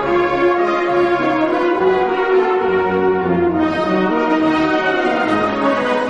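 Orchestral waltz music, with brass and horns prominent over the orchestra in sustained, steady phrases.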